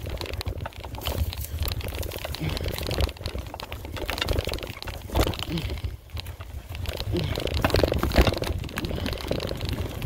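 Mountain bike rolling over a rough forest trail: a dense run of crunching and rattling clicks from the tyres and bike, over a steady low rumble on the microphone.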